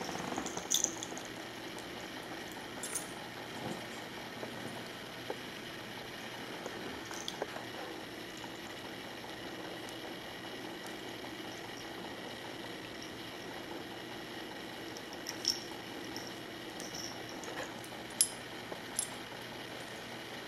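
Steady low hiss with a few light clicks and taps scattered through it.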